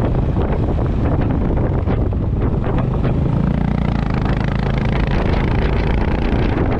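Honda CB350 RS's air-cooled single-cylinder engine thumping steadily at riding speed, with wind buffeting the microphone. The engine note swells a little about halfway through.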